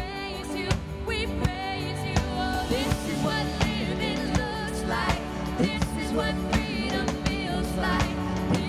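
Music: a song with singing over instruments, with a steady drum beat.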